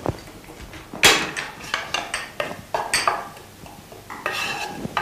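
Cooking utensils clattering against a pot and small bowls as spices are added: a sharp knock about a second in, then several lighter clinks. A short hiss comes near the end.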